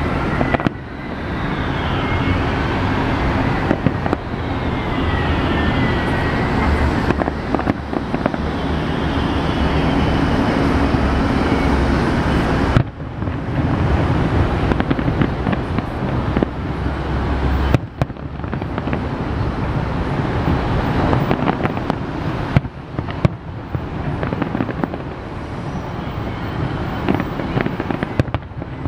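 A fireworks display over a city: shells bang every few seconds, over a steady rumble of city traffic. Rising and falling whistles come in the first dozen seconds.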